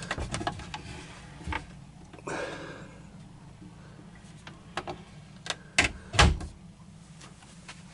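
Wooden hanging-locker door on a yacht opened by its finger-pull catch and shut again: a run of light clicks and knocks, with the heaviest knock about six seconds in as the door closes.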